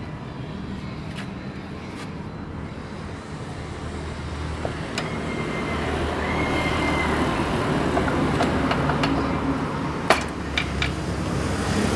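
A vehicle engine running in the background, slowly growing louder, with a few sharp metallic clicks and taps as engine parts are handled, the loudest about ten seconds in.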